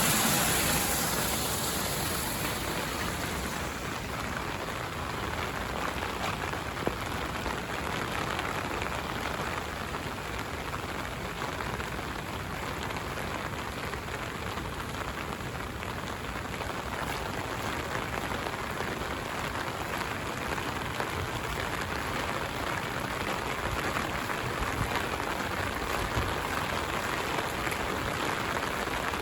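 Heavy rain falling and pattering on surfaces: a steady hiss with scattered drop clicks. A louder rushing sound fades out in the first couple of seconds.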